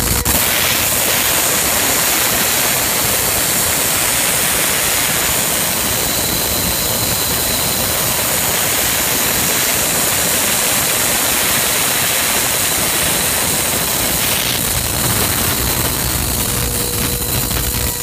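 Spark gap of a home-built Tesla hairpin circuit firing continuously, a loud steady noise that starts right at the beginning and cuts off at the end.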